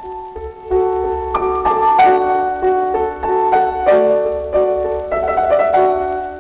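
Classical instrumental music starts suddenly, several melodic lines playing held notes together.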